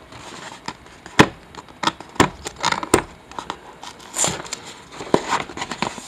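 A taped cardboard box being picked at and pried open by hand: a scattering of sharp snaps and clicks with bits of crinkling and scraping as the tape and flaps give.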